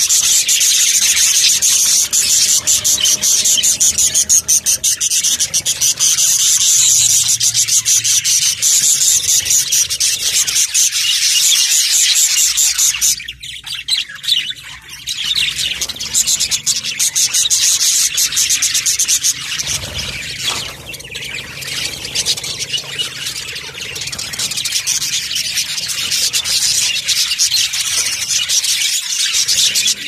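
A flock of budgerigars chattering and warbling, many birds at once in a dense, continuous high-pitched twitter, with a brief lull about 13 seconds in.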